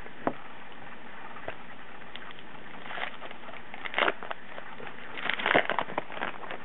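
Crinkling and tearing of a baseball card pack wrapper being opened, in several short rustling bursts, loudest about five and a half seconds in, after a couple of faint taps.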